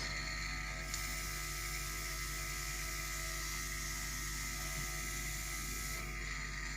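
Small airbrush compressor running with a steady motor hum. From about a second in to near the end, a single-action airbrush hisses as it sprays grey primer.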